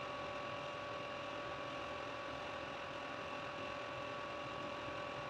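Steady hiss with a faint, even electrical hum; no distinct handling sounds stand out.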